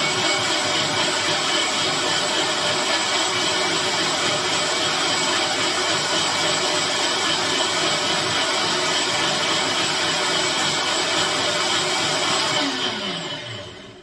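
Nutribullet personal blender running at full speed, blending whole limes with ice and green tea into a smooth liquid. Near the end the motor cuts off and winds down in a falling whine.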